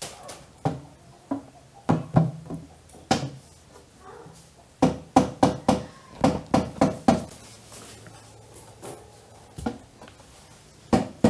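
Repeated sharp knocks of a hand tool on a hollow plywood box, each with a short boxy ring. The knocks are scattered at first, then come in a fast run of about three a second about five seconds in.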